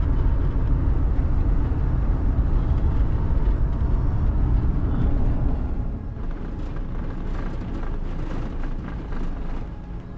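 Car driving: a steady low road rumble that drops noticeably about six seconds in.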